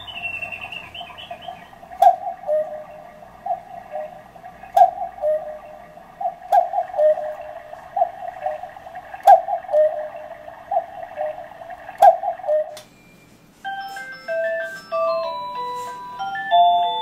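Cuckoo clock calling cuckoo over and over in falling two-note calls, several with a sharp click, striking the hour. A little after the calls stop, its music box starts playing a tinkling melody.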